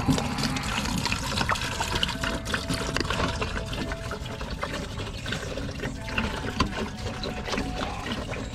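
Diesel draining from the truck's opened drain into a cut-open plastic jug: a steady splashing flow of liquid with small scattered clicks.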